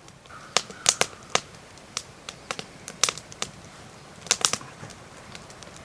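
A small fire of dry sticks crackling and popping as it catches, with irregular sharp snaps, a few louder clusters about a second in, three seconds in and four and a half seconds in.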